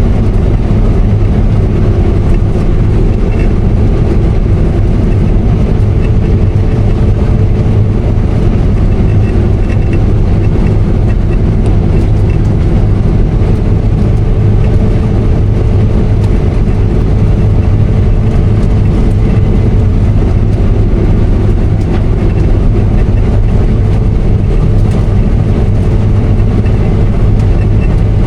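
Case IH 8120 Axial-Flow combine running steadily while cutting wheat: a constant heavy drone of engine and threshing machinery, with a faint steady whine in the middle that fades out about two-thirds of the way through.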